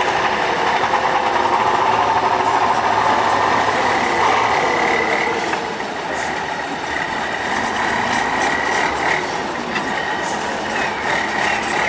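Tatra 815 8x8 truck's diesel engine working under load as it climbs over a steep sandy crest, with a thin, steady high whine above the engine noise in the second half.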